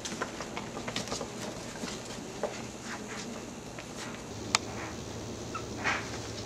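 Two-month-old Maltese puppies scuffling around and climbing into a cardboard box: scattered light taps, scratches and cardboard rustles, with one sharp click about four and a half seconds in.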